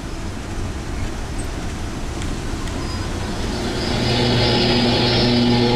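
Road and engine rumble of a converted school bus driving along. About four seconds in, several steady held tones come in and last to the end.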